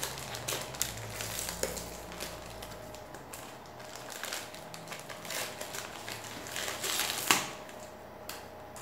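A white postal mailing envelope being torn open and handled by hand: a run of irregular ripping, crackling and crinkling, with the loudest rip about seven seconds in.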